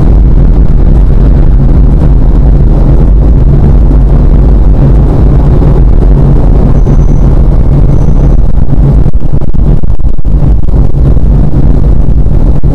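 An automatic car wash's rotating cloth brushes scrub over the windshield, heard from inside the car. The result is a loud, steady rumble with a constant low machine hum beneath it.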